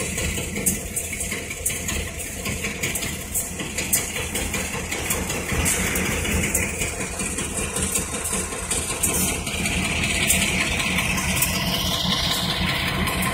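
Diesel locomotive engine idling steadily below, a low even rumble with scattered light clicks over it.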